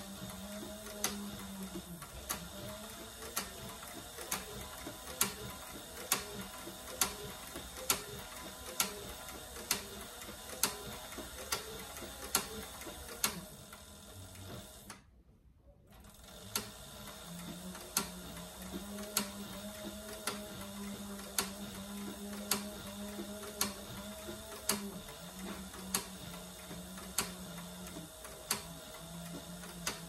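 Heavy-duty cylinder-arm leather sewing machine stitching thick leather slowly, one stitch at a time: a sharp click about once a second over a low hum. The sound cuts out for about a second about halfway through.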